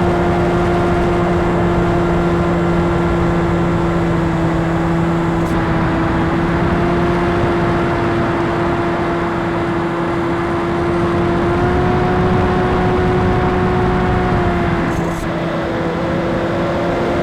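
Electric brushless motor and propeller of an FPV RC plane running at steady cruise throttle, a constant droning hum. It rises slightly in pitch a little past the middle and settles back near the end.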